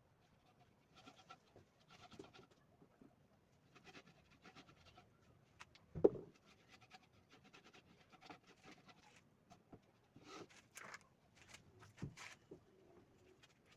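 Wooden boards being handled during a glue-up: short, irregular scraping and rubbing sounds, with a sharp knock about six seconds in and a few clicks near the end.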